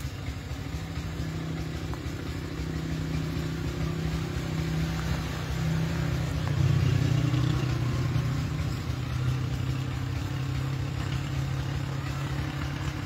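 An engine running steadily, growing somewhat louder about halfway through.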